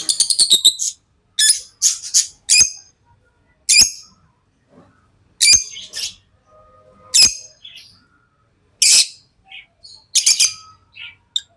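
Pet lovebirds chirping with high, sharp calls: a quick run of calls at the start, then single calls every second or two.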